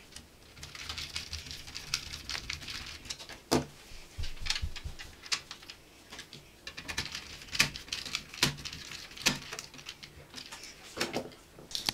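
Hand screwdriver driving screws into an Alienware X51's plastic airflow shroud over the CPU heatsink fan: scattered clicks, taps and light scrapes of metal tool on screws and plastic, with a few sharper knocks.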